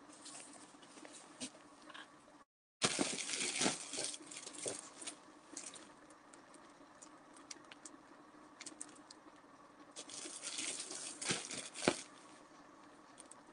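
Rustling and crackling of cotton stuffing being handled and pushed into a small fabric cone, in two busier spells, one about three seconds in and one about ten seconds in, with scattered light clicks between. The sound drops out completely for a moment about two and a half seconds in.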